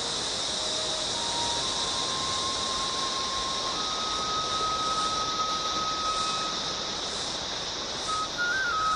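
Soft background music of single long held notes that step slowly from one pitch to another, over a steady high chirr of insects such as crickets.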